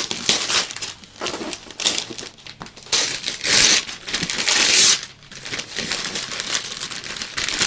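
Gift-wrapping paper being torn and crumpled off a cardboard box, in a run of rustling rips. The longest and loudest runs from about three to five seconds in.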